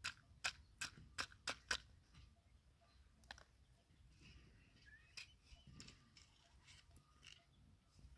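Six sharp clicks in quick succession, then scattered fainter clicks and light rustling, as small objects are handled and knocked together by hand.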